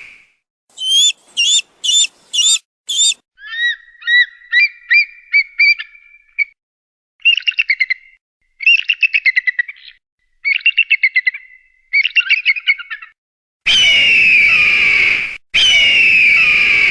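Eagle calls: five short sharp calls, then a run of rising chirped notes and four bursts of rapid high-pitched chittering, then two long, loud, harsh screams that fall in pitch near the end.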